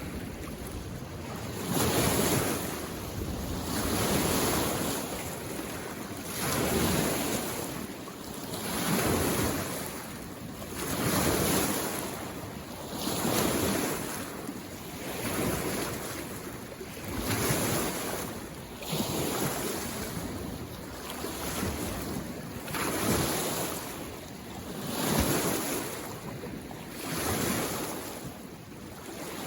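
Small waves washing in on a mountain lake shore, swelling and fading in an even rhythm about every two seconds.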